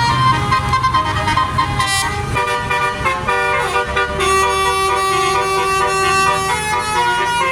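Bus telolet horn (Basuri multi-tone horn) playing a melody: several horn tones sounding together and stepping from note to note, over a bus engine running.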